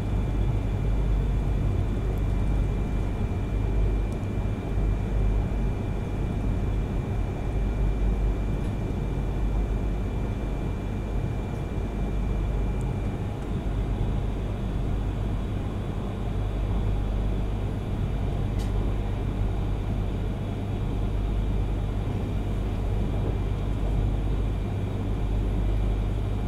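Cabin running noise of a Yamagata Shinkansen Tsubasa train at speed: a steady low rumble, with a thin high tone that fades out about halfway through.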